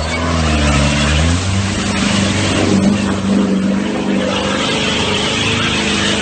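Off-road vehicle's engine revving up hard in the first moment, dipping briefly, then held at high revs under load, with a steady hiss over it.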